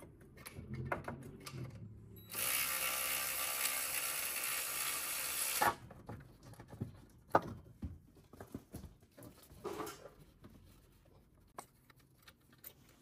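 Power ratchet (ratchet gun) running for about three seconds as it backs out the alternator's lower mounting bolt. Scattered metal clinks and knocks of tools and parts come before and after it.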